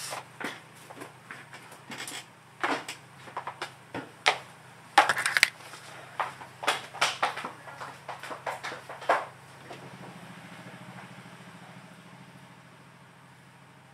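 Irregular clicks, taps and knocks of small parts being handled and fitted together during assembly, some in quick clusters. For the last few seconds a faint steady hum takes over and slowly fades.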